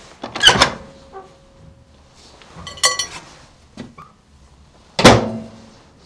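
Microwave oven door and casing being handled: a few sharp clunks and knocks, ending in a heavy thunk about five seconds in as the door is shut.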